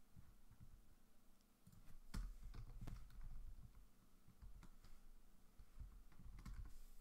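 Faint computer keyboard typing: scattered keystrokes with dull low thumps, busiest about two to three seconds in.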